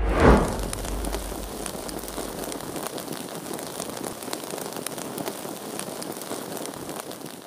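A short whoosh dropping in pitch, then torch flames crackling steadily with fine pops, slowly fading.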